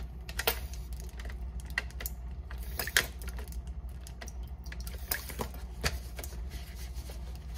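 Light, irregular clicks and taps as soy sauce is measured out: a metal tablespoon touching a glass bowl and a plastic squeeze bottle being handled, over a steady low hum.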